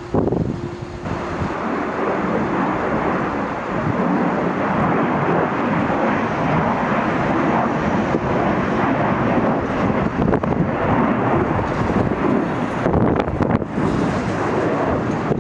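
Airplane engine noise: a loud, steady rushing noise that starts abruptly, with brief crackles of wind on the microphone near the end.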